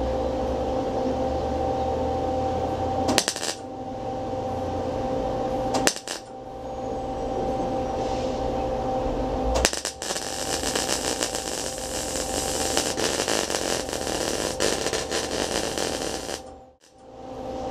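MIG welding arc crackling on thin-gauge auto body sheet steel for about seven seconds, then cutting off abruptly near the end. Two brief crackles come earlier, over a steady hum.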